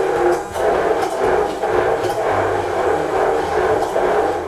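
Immersion blender running in a stainless steel saucepan, puréeing a thick white chocolate ganache.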